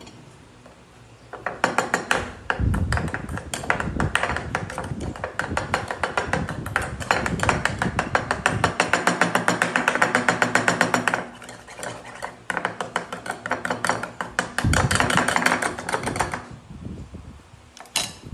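Metal spoon rapidly clinking and scraping against a ceramic bowl, stirring and mashing mango with milk. The quick, even clinks ring briefly, pause about eleven seconds in, and stop shortly before the end.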